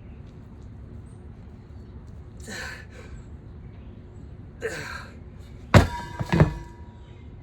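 Heavy steel bulldozer wheel set down hard at the end of a set of overhead presses: two loud clanks half a second apart, each with a metallic ring. Before them come two sharp exhalations from the lifter.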